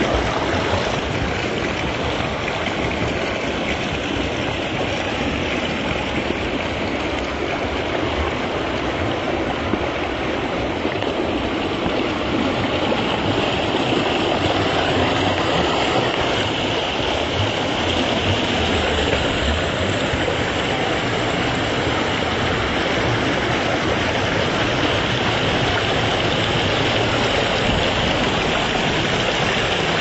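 Small creek cascading down rock ledges into pools: steady rushing, splashing water.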